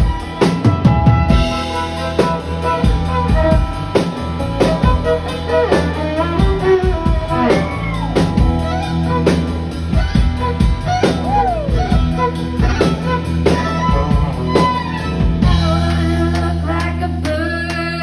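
Live band playing a song: drum kit, bass and electric guitar under a lead melody that slides up and down in pitch.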